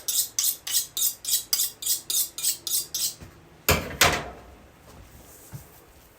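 A knife being sharpened: quick, even metal-on-metal strokes, about four a second, that stop about three seconds in, followed by two loud clanks as the tools are set down.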